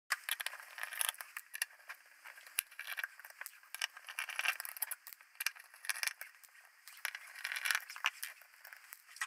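A screwdriver undoing the small screws that hold a circuit board in a metal housing: irregular clicking and scraping as the bit turns in the screw heads.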